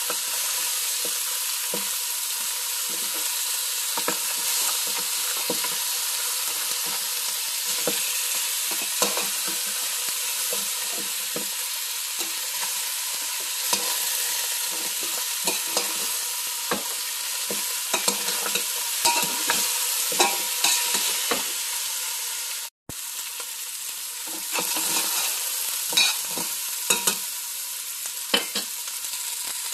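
Beef bones and meat searing in a pot: a steady sizzle, with scattered knocks and clinks as the pieces are moved and turned against the pot. The sound cuts out for a moment about 23 seconds in.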